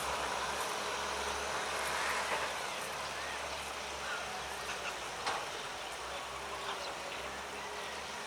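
Sumitomo SH210 long-reach excavator's diesel engine running steadily, with a low hum that fades about five seconds in and a few faint, short high chirps over it.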